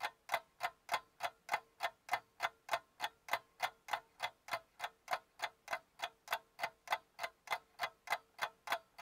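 Clock ticking at a steady pace of about three ticks a second, with a faint steady tone underneath: an edited-in clock sound effect marking a long wait.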